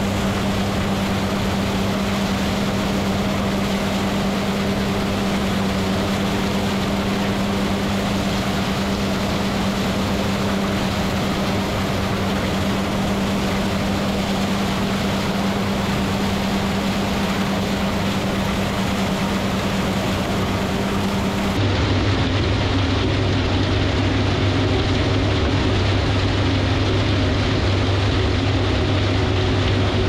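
New Holland 38 flail chopper running at full speed, chopping corn stalks and blowing them into a chopper box, with the John Deere 7810 tractor pulling it. A loud, steady mechanical drone that abruptly drops to a lower-pitched hum about two-thirds of the way through.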